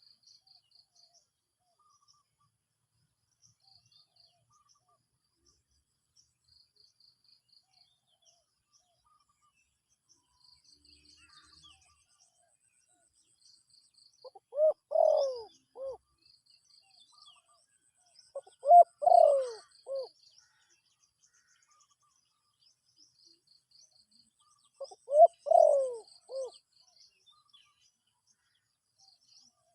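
A dove cooing: three phrases of several low notes, about halfway through, a few seconds later, and near the end. Faint high chirping in short repeated trains runs underneath.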